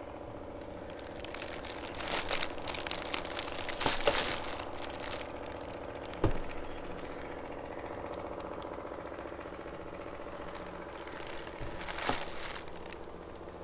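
Kinetic sand being cut and crumbling, in a few crackling, rustling bursts about two, four and twelve seconds in, with a sharp click near the middle, over a steady low hum.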